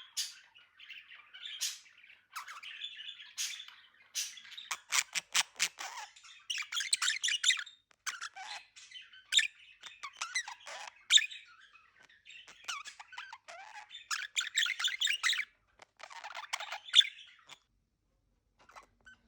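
Budgerigars chattering and warbling, with sharp chirps and squawks in fast runs, falling quiet near the end.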